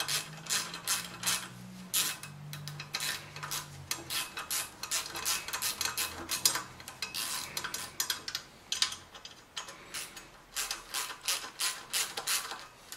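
Quarter-inch ratchet clicking in quick runs of short strokes, driving the oil pickup tube's lower bolt through a 10 mm universal socket on a BMW M52 engine.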